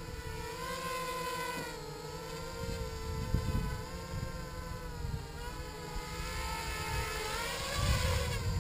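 Small HK 250 quadcopter's brushless motors and propellers running in a steady whine that wavers up and down in pitch as the throttle is worked to hold a hover, rising near the end. Low rumbles of wind buffet the microphone.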